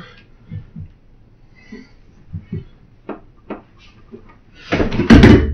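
A few light knocks and taps as a PVC backdrop pipe is handled, then a louder clattering knock near the end.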